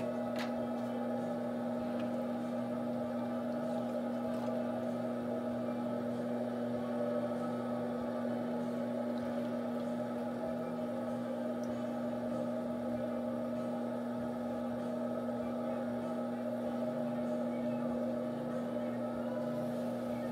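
Electric potter's wheel motor humming steadily, the wheelhead spinning at an even speed.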